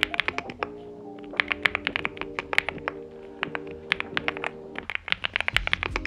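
Fast typing on a NuPhy Gem80 mechanical keyboard with factory-lubed NuPhy Mint linear switches and double-shot PBT mSA keycaps: a quick run of keystrokes with a short pause about a second in. Soft background music plays underneath.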